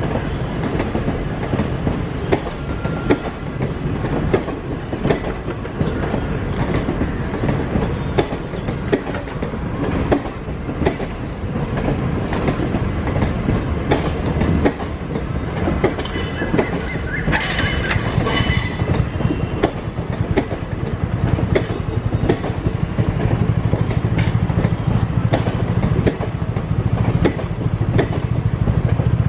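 Passenger coaches of an express train departing the station, rolling past with their wheels clacking over rail joints in a steady run of clicks. A brief high squeal comes about two-thirds of the way in, and a low rumble grows louder toward the end.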